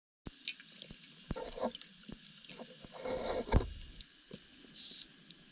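Underwater sound on a rebreather dive: a steady high hiss with scattered clicks and knocks, a low rumble about three seconds in, and a short hissing burst near the end.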